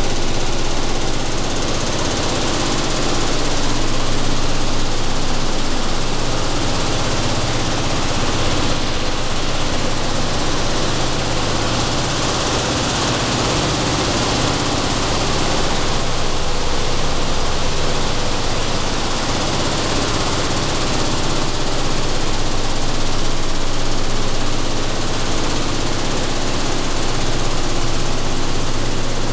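Sunflower seed processing machinery running steadily: a constant low mechanical hum from vibrating separator decks, under an even hiss of seeds and kernels streaming across the screens.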